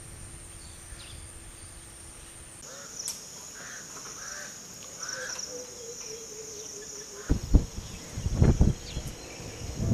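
Outdoor ambience of steady high-pitched insect buzzing, which shifts to a lower pitch about two and a half seconds in, with a few short bird calls in the middle. Loud bursts of low rumbling come in over the last few seconds.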